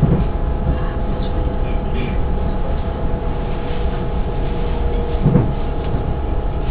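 S-Bahn train running on the track, heard from inside the passenger coach: a steady rumble with a faint steady whine for a few seconds in the middle, and two short low knocks, one right at the start and one about five seconds in.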